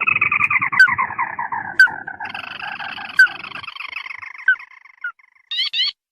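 Crake lure call: a long, rapid trill that slides steadily down in pitch, with a second descending trill overlapping it about two seconds in and a few short separate notes, fading out near the end.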